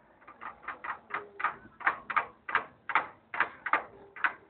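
Metal clicks and knocks, about three a second, from the gears, shafts and control levers in the opened lever control box of a Cat 140B motor grader as they are worked by hand.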